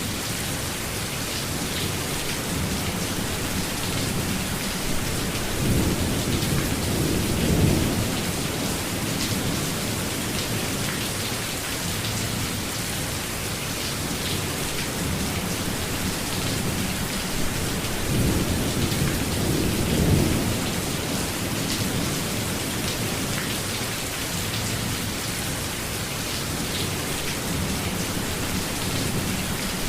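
Steady rainfall in a thunderstorm, with rolling thunder rumbling low twice: about six seconds in and again about eighteen seconds in.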